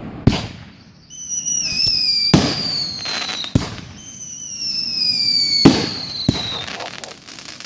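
Fireworks going off: a handful of sharp bangs, with two long whistles that slowly fall in pitch between them.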